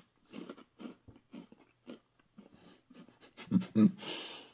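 Crunchy Hot & Spicy Cheez-It crackers being chewed close to the microphone: crisp crunches about two a second. Near the end there is a short vocal sound and a loud breath out.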